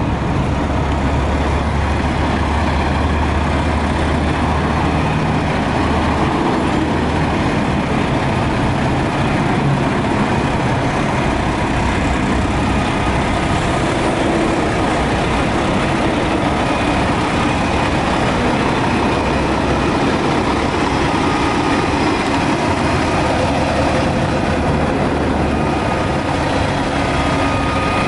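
Mack tandem-axle dump truck's diesel engine idling steadily.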